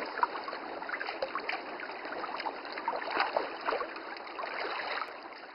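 Trickling, babbling water with many small bubbling notes.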